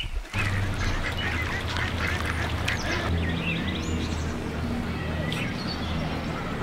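Ducks quacking and calling in a busy chorus, starting abruptly about a third of a second in, over a low, steady drone that shifts pitch a few times.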